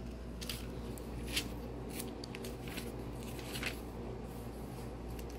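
Thin Bible pages being handled and turned, several faint paper rustles and light taps over a steady low room hum.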